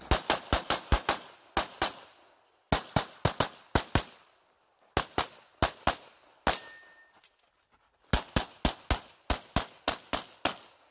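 A 9mm CZ Shadow 2 pistol firing strings of rapid shots, many in quick pairs, about thirty in all. The strings are broken by short pauses of a second or so between groups.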